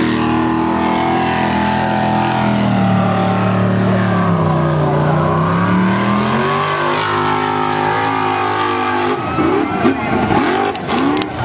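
Formula Offroad buggy's engine at full throttle on a steep dirt hill climb, its pitch sagging under load in the middle and then rising again. Near the end the engine revs sharply up and down several times as the buggy reaches the crest.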